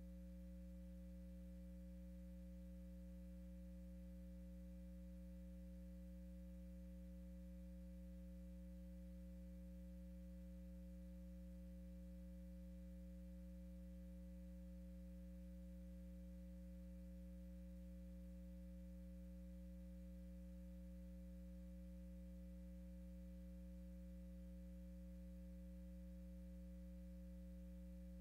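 Faint, steady low electrical hum with a higher buzzy overtone, unchanging throughout, on an otherwise silent feed.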